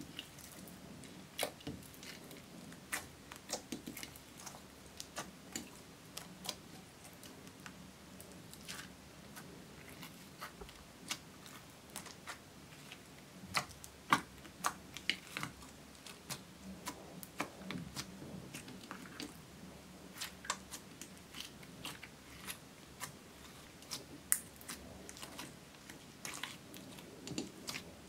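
Hands kneading and pressing slime in a glass dish while black eyeshadow powder and beads are worked in: irregular sticky pops, clicks and crackles, some of them sharp, over a soft squishing.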